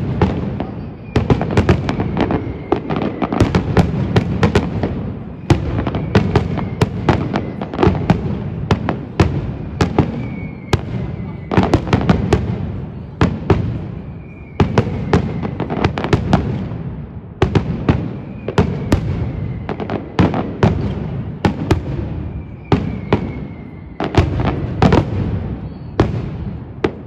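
Aerial fireworks display: a dense barrage of shell bursts, many sharp bangs in quick succession over a continuous low rumble, coming in waves that ease off briefly before building again.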